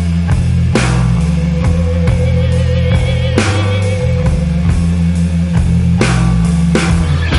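Rock music with guitar and drums, with a loud crash about every two and a half seconds.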